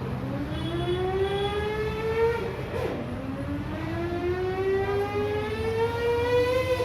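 A child's voice imitating a motorbike engine revving up. The pitch climbs in long rising glides and drops back suddenly like a gear change, twice.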